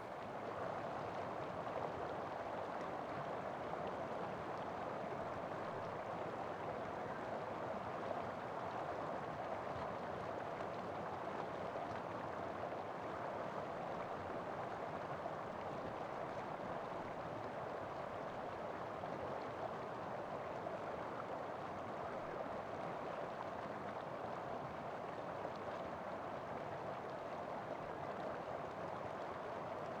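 A creek running over rocks: a steady, unbroken rush of water.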